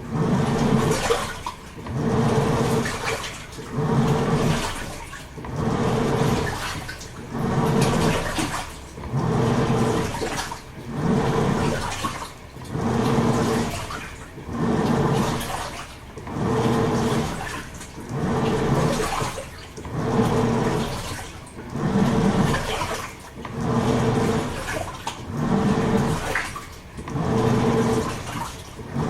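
Toshiba AW-42SEE4(S) top-loading washing machine agitating a full tub of water: the motor hums and the water churns and sloshes in regular surges, about one every two seconds, with short pauses between them as the drum changes direction.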